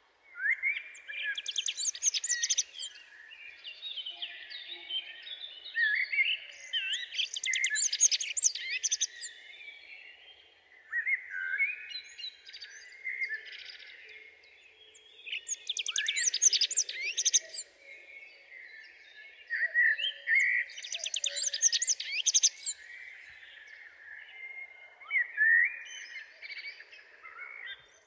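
Songbird singing, repeated phrases a few seconds apart, each a warble that breaks into a rapid high twitter.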